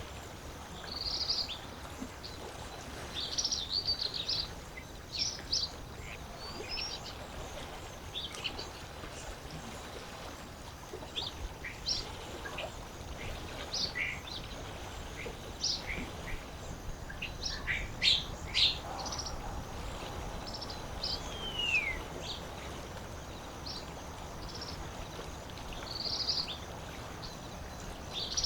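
Several small birds chirping and calling in short, high notes scattered throughout, with one falling whistle about three quarters of the way through, over a steady low wash of lake water.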